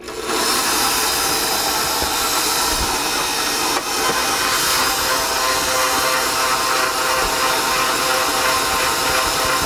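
KitchenAid stand mixer switched on at speed 2, its motor running steadily and loud as the dough hook turns, working flour into a yeast batter.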